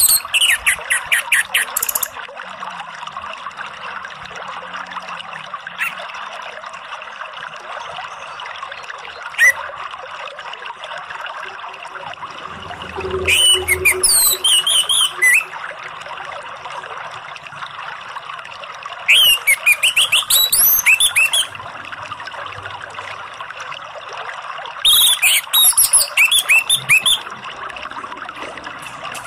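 Orange-headed thrush singing: four bursts of rapid, varied whistled phrases of about two seconds each, with a couple of single short notes between them.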